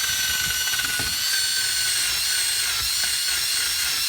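Power drill spinning a wire brush against a brake caliper, scrubbing it clean: a steady motor whine over continuous high-pitched scratching.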